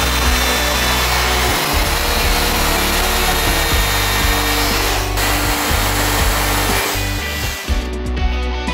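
Power drill with a twist bit boring holes into a tube: a steady grinding whir with a brief break about five seconds in, stopping near the end. Background rock music plays under it.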